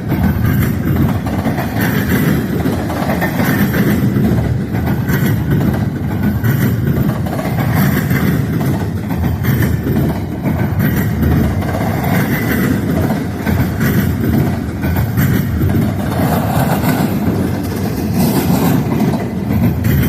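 Freight train rolling past with a steady, loud rumble of railcars, mixed with wind buffeting the microphone.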